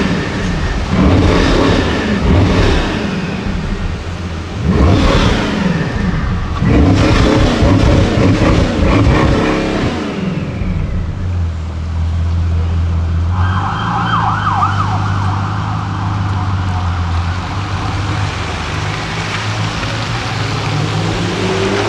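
High-performance car engines revving and accelerating hard, with rising pitch sweeps, for about the first half. Then a steady low engine drone, joined about two-thirds of the way in by a higher wavering tone.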